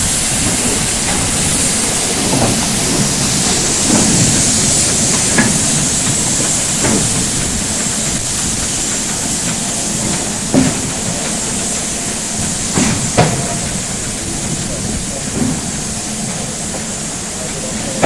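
Steam hissing steadily from a Deutsche Reichsbahn class 44 2-10-0 steam locomotive standing in steam, with a few sharp metallic clanks about two thirds of the way in.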